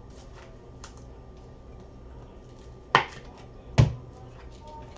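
Two sharp knocks on a tabletop a little under a second apart, about three seconds in, over faint clicking from cards and packaging being handled.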